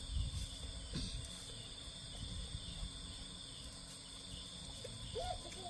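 Insects chirring steadily in a high, even drone over a low background rumble.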